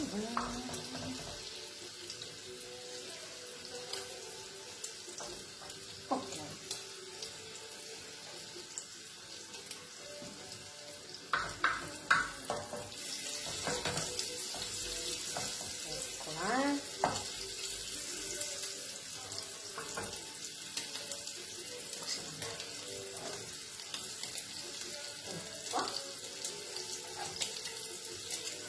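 Diced pancetta sizzling in a frying pan, a steady hiss, with a few sharp knocks about twelve seconds in.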